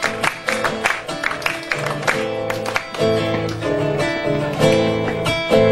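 Acoustic guitar strumming the rhythm of an Argentine chacarera, a quick run of strokes over held chords, in an instrumental passage of the song.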